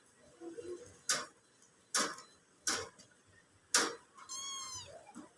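Four sharp clicks roughly a second apart, then a cat meows once, a short high call near the end.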